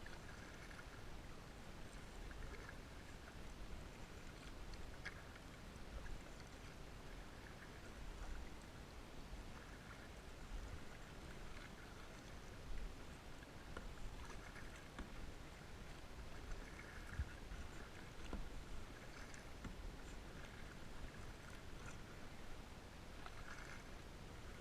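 Kayak being paddled, with soft paddle splashes and drips in the water every couple of seconds over a steady low rumble.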